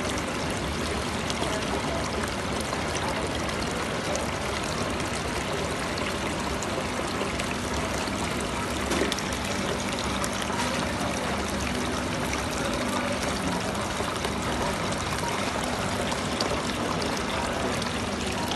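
Decorative rock fountain running: water spilling steadily from a spout and splashing into the basin below.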